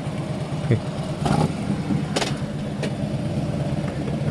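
A Harley-Davidson touring motorcycle's V-twin engine idling at a stop, with a Corvette's engine idling alongside. A few short sharp noises come through about a second in, near the middle and just after.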